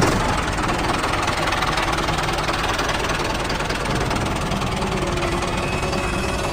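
Mini tractor engine running steadily.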